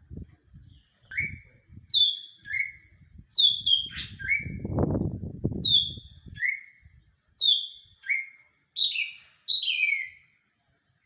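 Cucak ijo (green leafbird) singing a series of about a dozen short, sharp whistled notes, each sliding quickly down in pitch, some higher and some lower, in an uneven phrase. A low rumble sounds under the song about halfway through.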